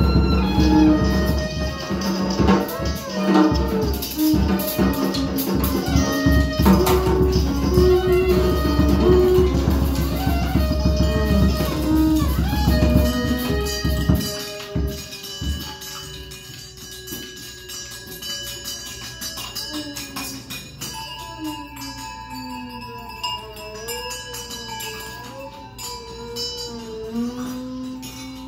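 Free-improvised live music from electric guitar, drum kit and a bowed instrument. It is loud and dense with drums for about the first half, then drops suddenly to quieter sliding, wavering bowed and sustained tones.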